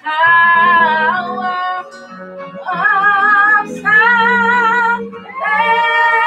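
A woman singing a gospel song, holding long notes with vibrato in short phrases broken by brief pauses.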